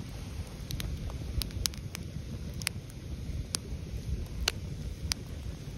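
Campfire of stacked sticks crackling, with sharp irregular pops and snaps, over a low rumble of wind on the microphone.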